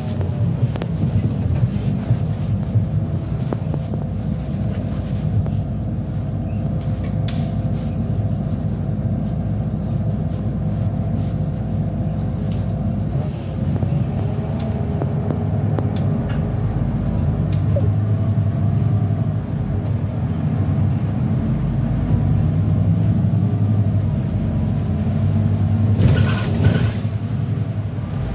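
Inside a moving Solaris city bus: steady low drivetrain and road rumble, with a faint whine that glides up and down in pitch as the bus changes speed. A short, louder hiss comes about two seconds before the end.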